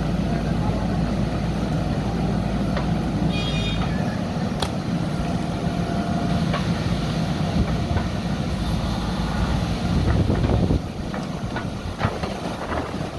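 Diesel engine of heavy earthmoving machinery running steadily, with a few sharp knocks. It grows louder briefly near the end, then drops off suddenly.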